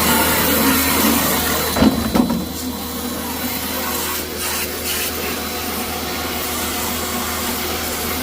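Pressure washer running, its motor droning steadily under the hiss of the water jet spraying a rusted metal toolbox. A couple of short knocks about two seconds in.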